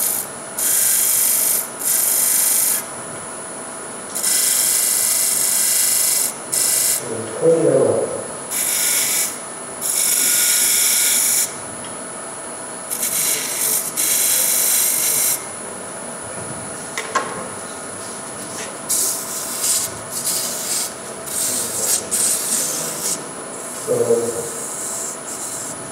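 A hand tool working a spinning wooden piece on a woodturning lathe: about a dozen short hissing strokes, each under two seconds, with brief pauses between.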